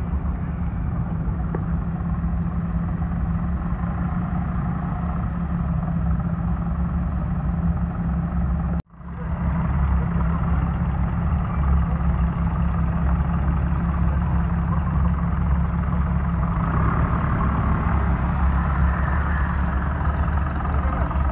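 Large engine of a custom orange cab-over pickup truck idling and creeping past at low speed: a steady low rumble. The sound cuts out abruptly for a moment about nine seconds in.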